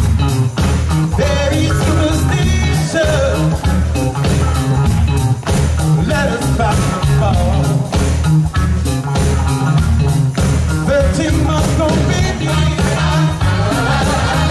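Live soul band playing a classic Motown-style song with a vocalist singing over a steady bass and drum beat, picked up by the camera's microphone through the open-air PA.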